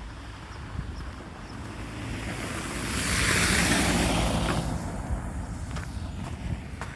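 A car passing by on a wet, slushy road: its tyre hiss swells to a peak about halfway through and fades away, with a faint engine hum under it.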